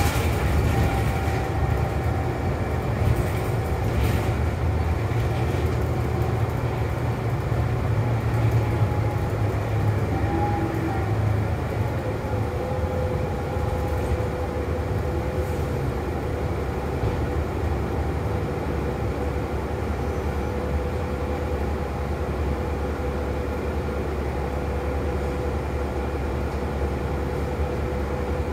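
Cabin noise inside a New Flyer XD40 diesel city bus: a steady low engine rumble with a faint steady whine that drops lower in pitch about twelve seconds in.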